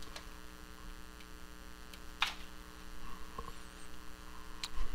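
Steady electrical mains hum with several evenly spaced overtones, broken by a few faint clicks and knocks of handling, the clearest about two seconds in.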